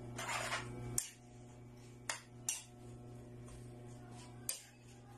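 Kitchen utensils at work on a pan of noodles: a short scraping stir, then a few sharp clinks of a utensil against the pan, over a steady low hum.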